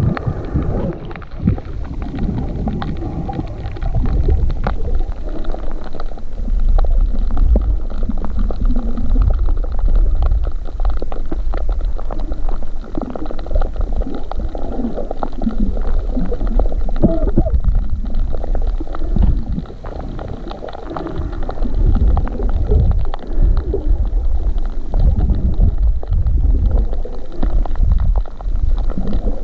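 Underwater water noise picked up by a submerged action camera: a heavy, muffled low rumble with irregular gurgling and bubbling as the snorkeler swims.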